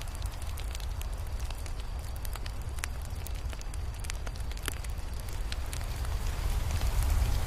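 Crackling fire: a steady low rumble of flames with frequent scattered sharp pops and crackles.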